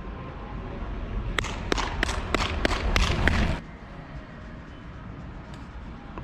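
Seven sharp, evenly spaced strikes, about three a second, over a low rumble that swells and then cuts off abruptly about three and a half seconds in.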